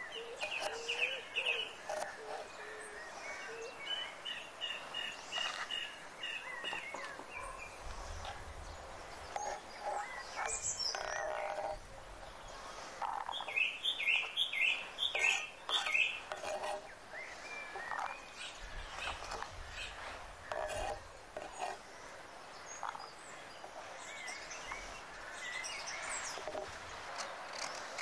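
Small birds chirping in short runs of quick repeated notes, loudest in the middle, with scattered light taps of a knife on a wooden cutting board as onions are chopped.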